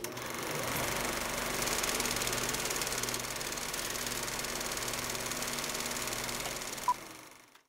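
An engine running steadily at a fast even idle, with one short sharp tick near the end.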